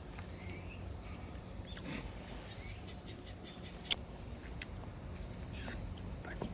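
Insects trilling steadily in a high, even tone, with a few faint sharp clicks, the clearest about four seconds in.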